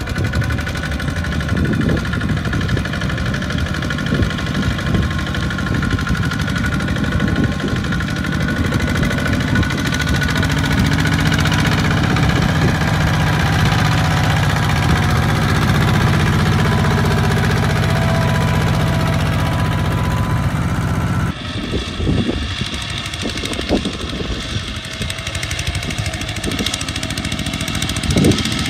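Single-cylinder diesel engines of two-wheel walking tractors running hard under load as they haul rice-laden trailers through deep mud, a steady chugging that grows heavier in the middle and changes abruptly about three-quarters of the way through.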